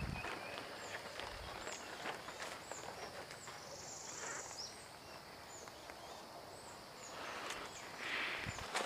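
Footsteps rustling through grass and brush, with short high bird chirps repeating roughly once a second.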